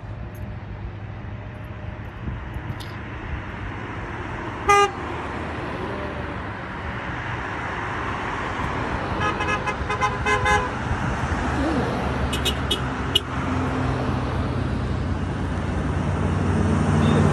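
Vehicle horns sounding from a passing convoy of emergency vehicles over steady traffic and engine noise: one short toot about five seconds in, then a longer honk of over a second around ten seconds. The engine noise grows louder near the end as a fire truck approaches.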